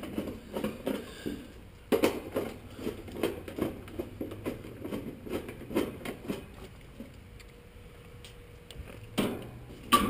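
Light metallic clicking and clinking of screws and a hand nut driver against the sheet-metal cabinet of an American Standard heat pump as replacement screws are driven in, several ticks a second, with two sharper knocks near the end.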